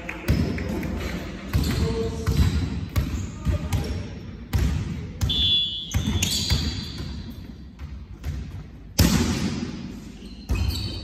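Volleyball rally in an echoing sports hall: irregular sharp slaps and thuds of hands and forearms hitting the ball, mixed with players' footfalls on the wooden court. The loudest hit comes about nine seconds in.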